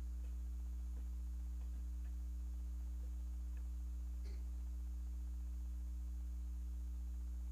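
Steady low electrical mains hum, unchanging, with a few faint soft clicks.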